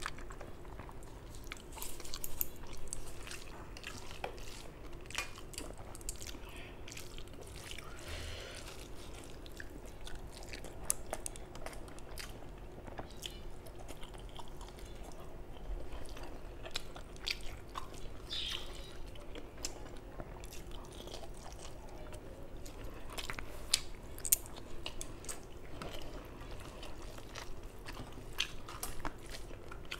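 Close-miked eating: rice mixed with curry by hand on a steel plate and chewed, with many short wet clicks and smacks.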